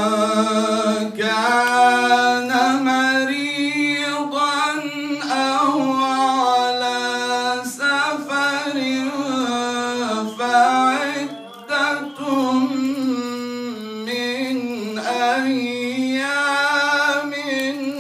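A man reciting the Quran in a slow, melodic chant: long held, ornamented notes from one unaccompanied voice into a microphone, with a brief breath about two-thirds of the way through.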